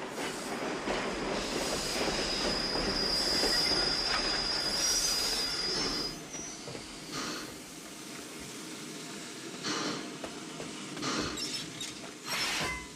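A train braking to a stop, with a steady high-pitched squeal of the wheels for a few seconds as the running noise dies away. A few separate clanks follow after it has stopped.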